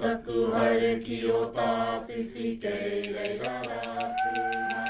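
Māori mōteatea chanted by voices, with long, drawn-out held notes. About three seconds in, a quick, even run of light clicks starts, and near the end a steady high held tone comes in under the voices.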